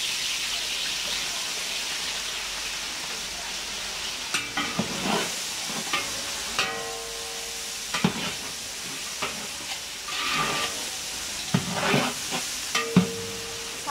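Chopped onions sizzling in hot oil in a large aluminium pot, with a metal ladle stirring and scraping them against the pot in irregular strokes from about four seconds in.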